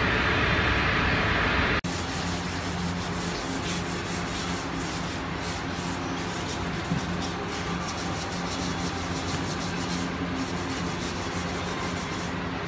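A steady hiss that cuts off abruptly about two seconds in, then sandpaper being rubbed by hand over cast gypsum lamp parts: irregular scratchy strokes over a low steady hum.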